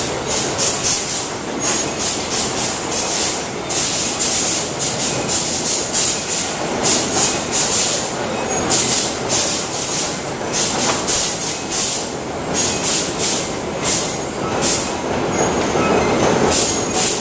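Oyster processing line running: conveyor machinery with a steady din and oyster shells clattering irregularly as they tumble off the belt into plastic crates.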